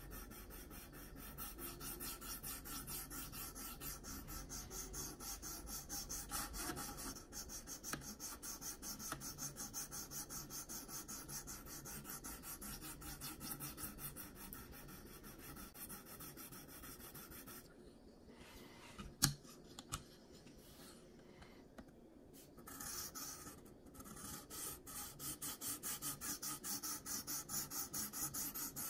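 A 300-grit sharpening stone on a KME guided sharpener rasping across a CPM 20CV knife edge in quick, even back-and-forth strokes. The stroking pauses about two-thirds of the way through, with one sharp click, then resumes with more distinct strokes.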